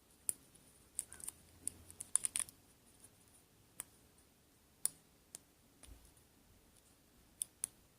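Irregular, sharp little clicks of a Peterson Gem hook pick working the pin tumblers of a solid-brass Master Lock No. 6 padlock under tension, sometimes two or three in quick succession with pauses between.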